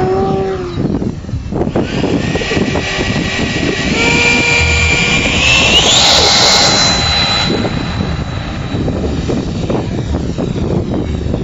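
70 mm electric ducted fan of an RC F-18 model jet whining as the throttle is advanced. The pitch steps up about two seconds in and again near four seconds, then climbs sharply around six seconds to a higher steady whine, the loudest point.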